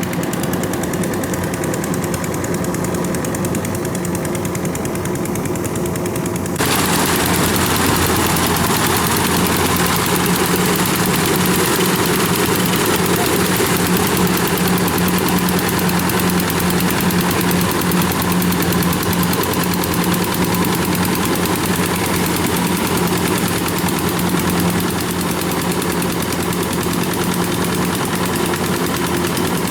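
Kubota rice combine harvester's diesel engine running steadily with a rapid, even knocking beat. About six and a half seconds in it suddenly gets louder and harsher and stays that way.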